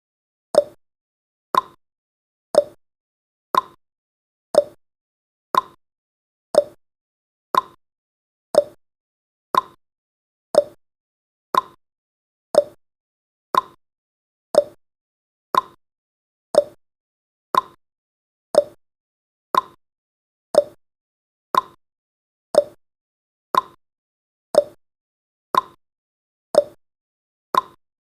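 Clock-tick sound effect of a countdown timer: one sharp tick each second, steady and even.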